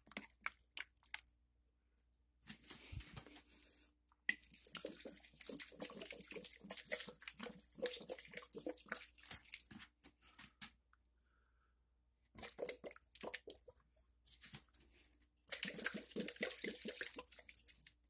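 Water poured from a plastic bottle onto the soil of potted plants, in several pours of a few seconds each with short quiet gaps between them, the longest lasting about six seconds.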